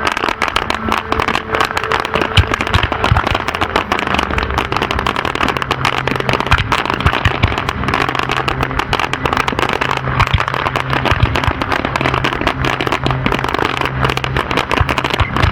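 Fireworks going off in a dense, continuous barrage of rapid pops and cracks, with no pause, over a steady low hum.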